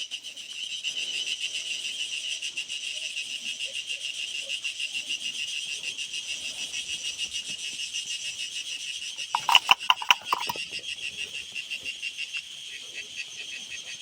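Cicadas stridulating: a steady, rapidly pulsing high buzz. About nine and a half seconds in, a brief louder pulsing call, lower in pitch, joins it for about a second.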